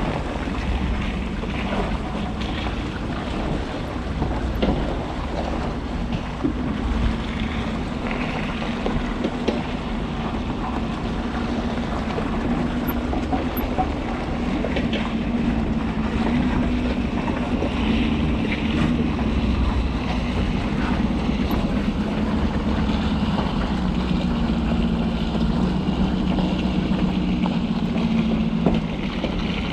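Ford F-250 Super Duty's 6.7-litre Power Stroke V8 diesel running at low speed as the truck drives slowly through mud and puddles, a steady drone that wavers slightly in pitch. Wind buffets the microphone throughout.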